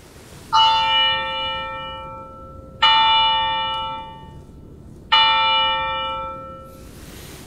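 Altar bell struck three times, about two seconds apart, each strike ringing out and fading. It marks the elevation of the consecrated host at Mass.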